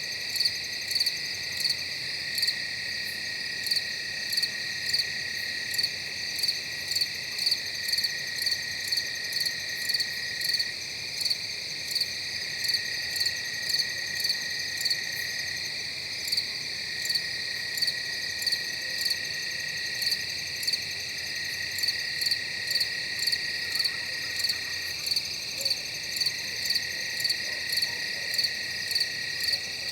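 Night-time chorus of crickets and other night insects: a steady high trill under loud, regular chirps repeating about three times every two seconds.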